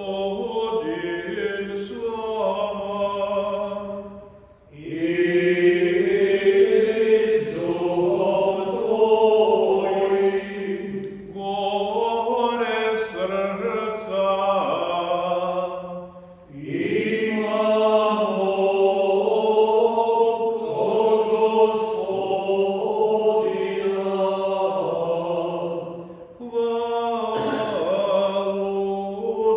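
A priest chanting a sung prayer of the Mass, long phrases held mostly on one reciting note, with short breaths between phrases about every ten to twelve seconds.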